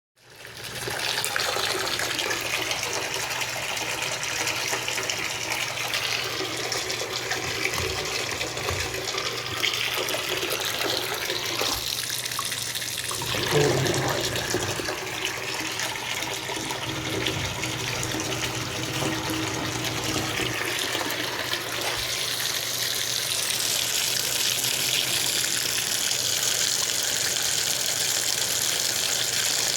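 Heater running at very low pressure with a steady low hiss and a faint hum underneath; a brief louder sound comes about halfway through.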